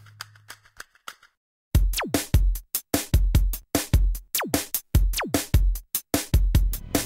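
Background music: an electronic drum-machine beat with deep kicks that drop in pitch. It starts hard after a brief silence about a second and a half in.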